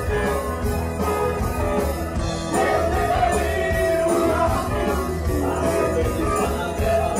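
Live rock band playing: a man singing over electric bass and guitar, with a steady beat.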